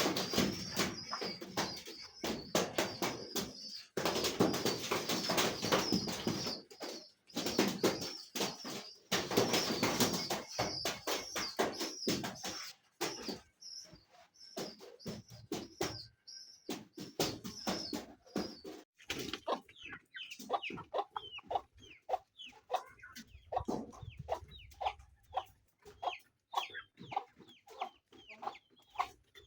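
Chickens clucking. The first half is dense and noisy, with a high, wavering peeping over it; in the second half come many short separate clucks.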